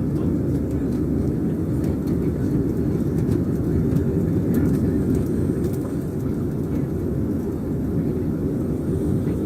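Airliner on departure: a steady, dense low rumble of its engines and rushing air.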